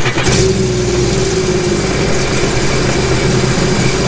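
Sea-Doo GTR 230's supercharged three-cylinder Rotax 1630 ACE engine running steadily just after starting, out of the water with no water hose connected. Its loose cylinder-3 injector harness connector has been reseated, and it runs without the injector fault code returning.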